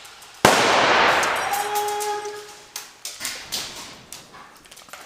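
A sudden loud bang about half a second in that fades away over about two seconds with a ringing tone, followed by a scatter of sharp clicks and knocks.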